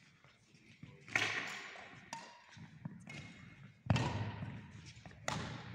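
Badminton rally: three sharp racket strikes on the shuttlecock, about a second in, near four seconds and again a second and a half later, each ringing on in the echo of a large sports hall.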